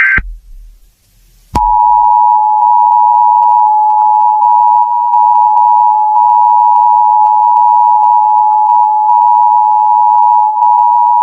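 Emergency Alert System two-tone attention signal: two steady tones sounding together in a harsh, unbroken drone. It starts about a second and a half in, just after the tail of a digital header burst cuts off.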